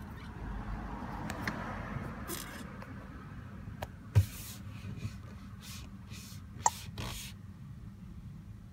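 A few sharp taps and clicks from fingers on a dashboard-mounted TomTom touchscreen and the hand on the dash, the loudest about four seconds in, over a low steady hum.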